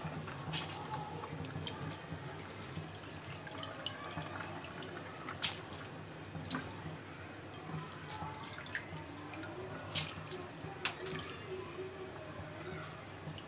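Pan of watery chicken stock bubbling at a gentle boil, with a few sharp ticks and pops over it.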